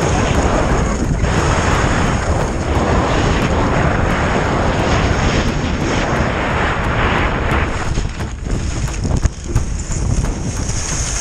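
Wind buffeting the microphone with a low rumble, over the hiss of skis sliding and scraping on packed snow during a fast downhill run.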